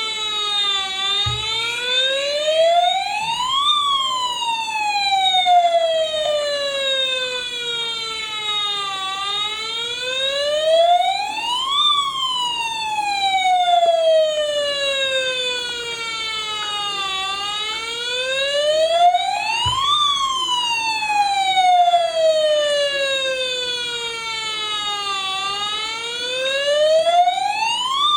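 Toy RC fire rescue truck's electronic siren wailing: a tone that rises over about three seconds, then slides back down over about five, repeating about every eight seconds. Two faint knocks come through underneath it.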